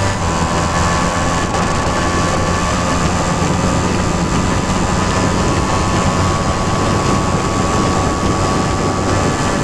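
Simson S51 moped's 50cc two-stroke single-cylinder engine running at steady, even revs while riding, over a steady rushing noise.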